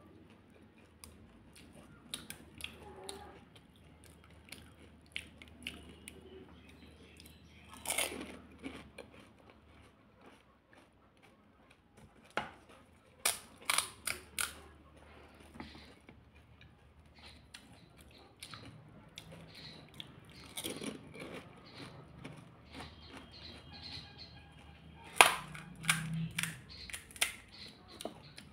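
Crisp fried pani puri shells cracking and crunching as they are broken, bitten and chewed, with quieter wet chewing in between. The loudest crunches come in short clusters about a third of the way in, around halfway, and again near the end.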